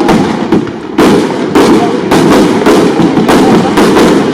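Fireworks going off in rapid succession: loud bangs about twice a second over a continuous crackling hiss.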